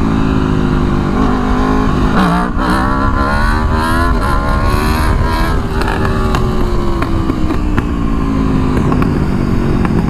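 Aprilia Tuono V4 1100's V4 engine revving hard at full throttle for a wheelie. Its pitch climbs and drops back at two upshifts in the first four seconds, then falls steadily as the throttle is eased and the bike slows. Wind noise rushes over the microphone throughout.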